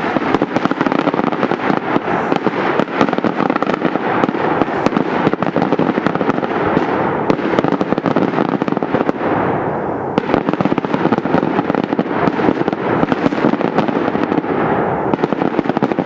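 Daytime aerial fireworks bursting in a dense, rapid barrage of firecracker bangs, the reports overlapping into a continuous crackle.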